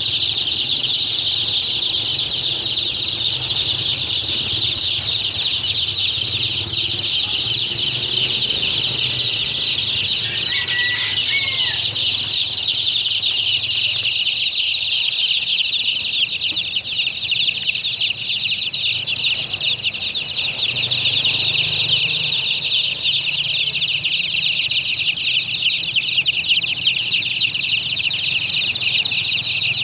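A crowd of two-day-old chicks and ducklings peeping constantly, many high calls overlapping into one unbroken chorus.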